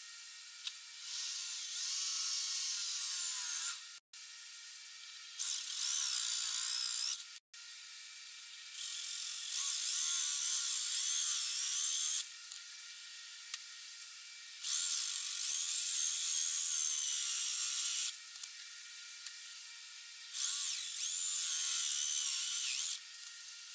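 Electric drill boring a hole through a metal plate held in a vise, run in five spells of a few seconds each with pauses between. The motor's high whine wavers in pitch as the bit bites and the trigger is eased.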